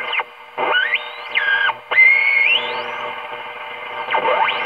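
1932 Tiffany Tone tube radio being tuned across the dial at full volume: its loudspeaker gives whistles that sweep up and down in pitch over a steady hiss, the loudest a rising whistle about two seconds in. The whistling is feedback through the set's very high gain.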